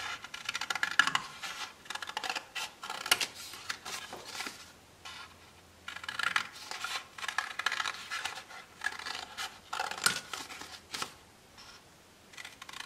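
Scissors snipping through a doubled sheet of red material, cutting out a face-mask pattern in runs of short cuts, with brief pauses about five and eleven seconds in.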